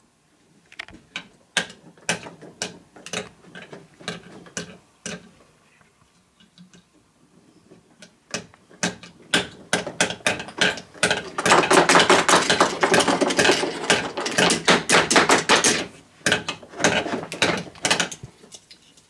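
Ratchet clicking from the hand crank of a toy wooden-railway crane (Cranky the Crane) being turned, with scattered clicks and knocks of toy pieces being handled. About halfway through comes a fast run of clicking lasting about four seconds, the loudest part.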